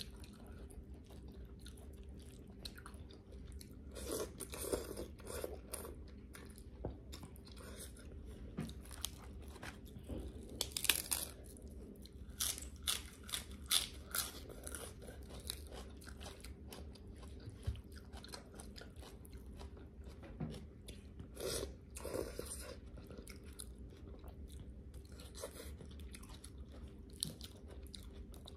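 Close-up chewing with crunchy bites of fried pork rind and crisp lettuce between softer wet chewing of noodle salad. The crunching comes in bursts, about 4, 11, 13 and 22 seconds in, loudest around 11 seconds.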